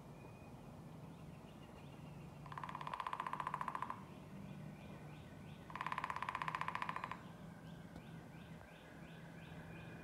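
A woodpecker drumming on wood: two rapid drumrolls of many fast, even strikes, each lasting about a second and a half, the second starting about three seconds after the first. Faint short chirps of small birds are heard around them.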